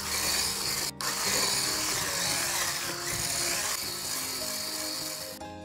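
Electric mixer running steadily, its whisk beating flour into sponge batter, with a brief break about a second in and stopping just before the end. Soft background music plays underneath.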